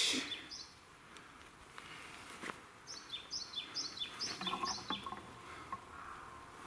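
A small songbird calling: runs of short, high chirps, each falling in pitch, repeated several times in quick succession, once just after the start and again a few seconds in. A single light click sounds about two and a half seconds in.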